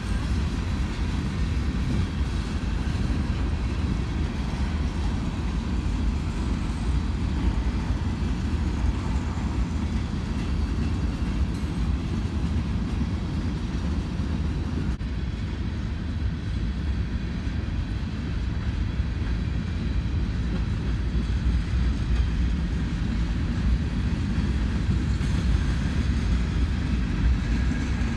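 Freight train of covered hopper and tank cars rolling past, a steady low rumble of wheels on rails.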